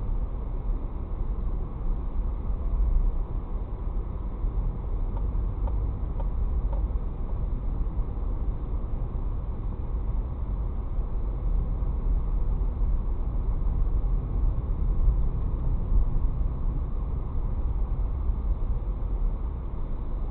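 Steady low rumble of a car's engine and tyres heard from inside the cabin while driving slowly through town streets.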